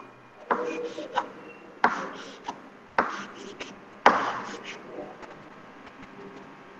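Chalk on a blackboard, drawing small slot shapes: a sharp tap about once a second, each followed by a few smaller clicks and a brief scratch, stopping about five seconds in.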